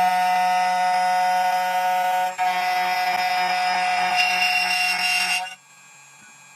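2M2 Tank 2 Pro CNC key cutting machine's spindle motor running, a steady high-pitched whine while it cuts an HYN14 key blank. It dips briefly partway through and cuts out abruptly near the end.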